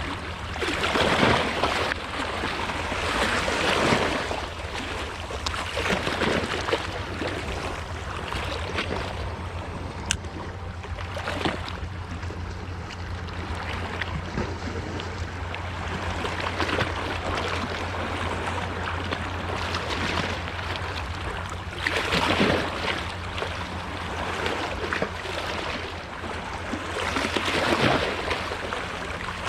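Boat engine running with a steady low hum, with swells of rushing wind and water noise every few seconds.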